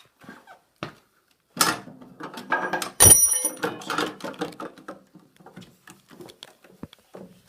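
Clattering and knocking of treadle-wheel parts being worked loose and handled, with one loud metallic clang about three seconds in that rings briefly.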